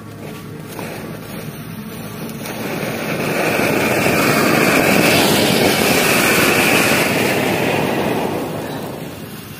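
Anar (flower-pot) firework burning, its spark fountain giving a loud rushing hiss that swells over the first few seconds, holds, then dies down near the end.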